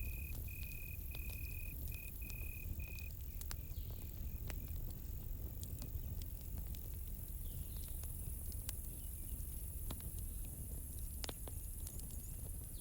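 Campfire crackling with scattered sharp pops over a low steady rumble. A cricket chirps in even pulses, about two a second, and fades out around four seconds in.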